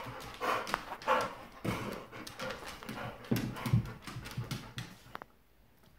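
Excited dogs moving about, their claws clicking on the floor, with panting. The sounds stop about five seconds in.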